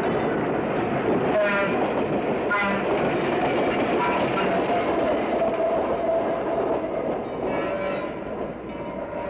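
Pacific Electric Red Car, an electric interurban railcar, running along the track with a steady rumble of wheels and motors. Its horn gives two short toots in the first few seconds and another fainter one near the end.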